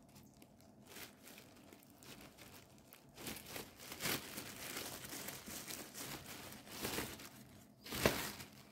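Thin plastic carry bag crinkling and rustling as it is untied and opened by hand, in irregular fits that are busiest from about three seconds in, with a louder crinkle near the end.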